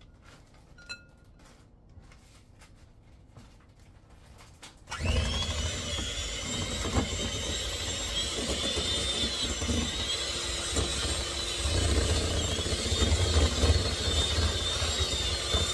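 Electric hand mixer switched on about five seconds in and running steadily, a high whine over a low rumble as its beaters cream room-temperature butter and cream cheese in a glass bowl.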